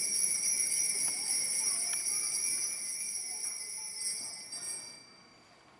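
Altar bells ringing at the elevation of the consecrated host, marking the consecration. A bright, steady, shimmering ring that fades out about five seconds in.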